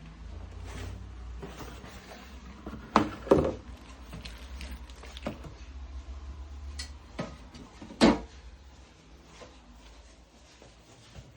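A few scattered knocks and clunks, the loudest a pair about three seconds in and one about eight seconds in, over a low rumble that fades out near the end.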